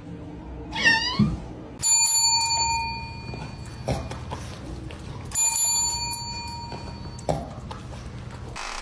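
A chrome desk service bell struck twice by a dog's paw, each ding ringing out and fading over about a second and a half.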